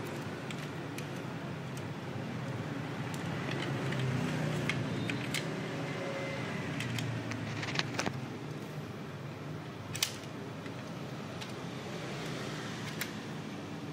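Scattered sharp clicks and knocks of hard plastic and metal parts on a Ricoh MP 5001/5002 paper feed unit as it is handled and its roller worked on the shaft, the loudest two about 8 and 10 seconds in. Under them runs a steady background rumble.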